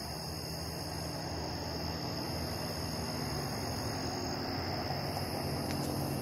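Crickets and other insects trilling steadily in a high-pitched chorus, over a low rumble.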